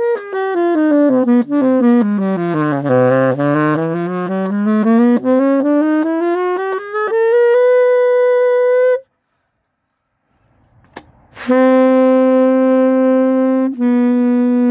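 A saxophone playing a fast run of notes down about two octaves and back up, ending on a held note. After a pause of about two seconds it plays long sustained notes, changing pitch once near the end.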